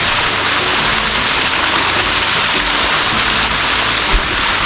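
Steady rushing of water cascading down the Sticky Waterfalls' limestone rock close by, with a brief low thump near the end.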